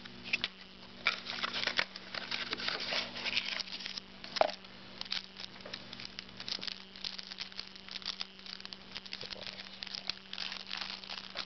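Trading cards and pack wrappers being handled: a steady run of small rustles, flicks and crinkles, with one louder knock about four and a half seconds in.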